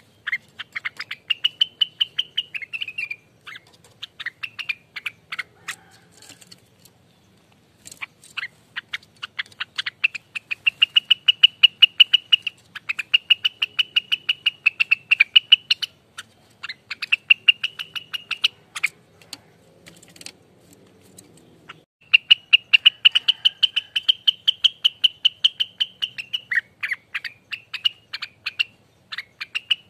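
Rengganis bird singing its rolling 'ropelan' song: long, fast runs of sharp repeated notes, in phrases of several seconds broken by short pauses.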